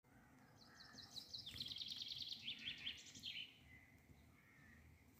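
Songbird singing faintly: a fast trill of high, rapidly repeated notes for about three seconds, then a few softer, lower notes.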